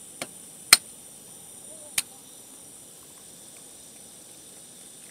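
Three sharp clicks, the second much the loudest and the last about a second later, over a steady high hiss.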